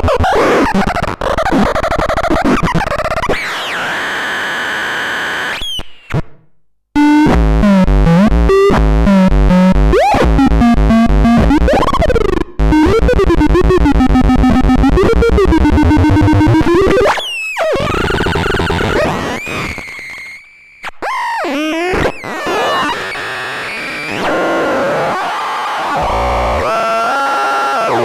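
Electronic noise instrument squealing and buzzing: wobbling, sweeping pitches over a harsh buzzing drone, cutting out abruptly several times before starting again.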